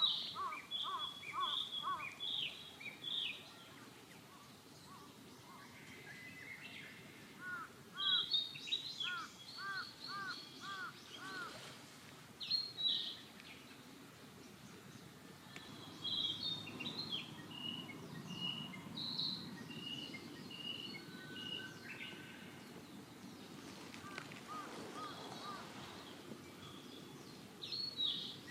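Wild birds chirping and calling, with clusters of short chirps and a run of about six rising notes about a third of the way in.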